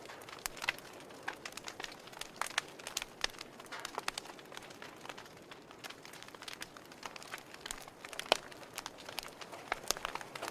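Fire crackling: irregular sharp pops and snaps over a faint hiss, with one louder snap about eight seconds in.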